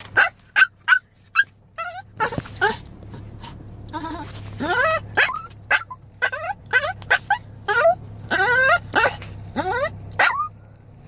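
Seven-year-old chihuahua whining and yelping over and over, short high cries that mostly rise in pitch, like a puppy's. It is separation distress: he is crying for his owner.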